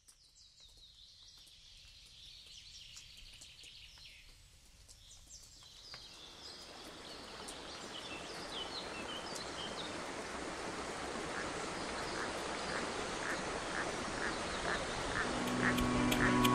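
Birds calling over a faint ambience, then a steadily rising rush of flowing water from a rocky mountain stream that builds until it dominates. Music with a steady beat comes in near the end.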